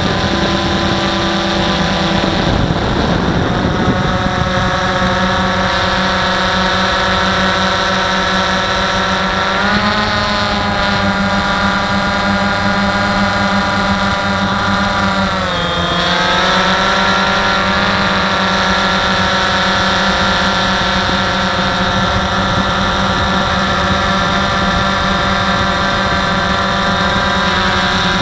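DJI Phantom 1 quadcopter's electric motors and propellers in flight, heard from its onboard camera: a loud, steady whine with several pitches. The pitch dips briefly about ten seconds in and again around fifteen seconds in as the motor speeds change.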